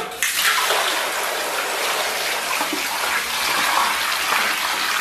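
Water poured steadily from a plastic jug into a stainless-steel basin already part-filled with water and beef hooves, a continuous gushing splash that stops at the end, filling the basin to blanch the hooves.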